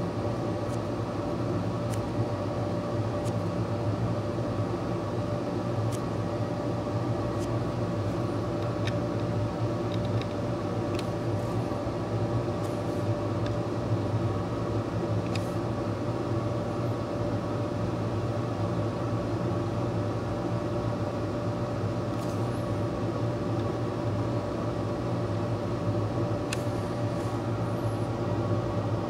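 Steady machine hum, an even drone with several fixed tones, with a few faint ticks of metal tweezers picking and setting down tiny surface-mount parts.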